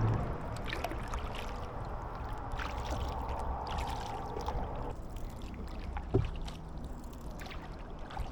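Kayak paddle strokes in slow-moving water, with light dripping and splashing from the blades, and a single sharp knock about six seconds in.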